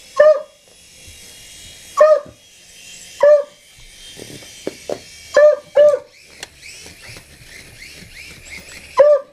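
A dog barking at a helicopter, six short, loud barks at uneven gaps, two of them in quick succession about halfway through. A faint high whir runs underneath between the barks.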